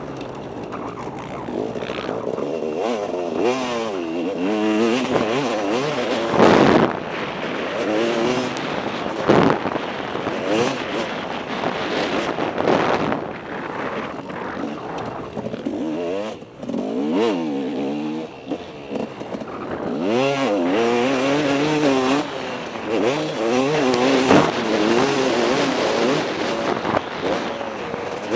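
KTM 250 SX two-stroke single-cylinder motocross engine racing on track, revving up and falling back again and again with throttle and gear changes. Two loud, short noisy bursts about a quarter and a third of the way in.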